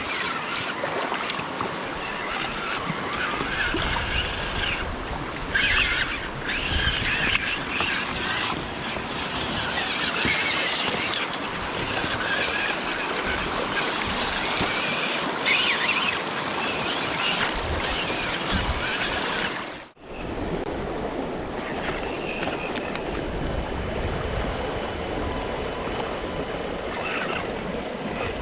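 Stream water rushing and splashing steadily, with louder splashy patches. The sound cuts out abruptly for an instant about twenty seconds in, then picks up again.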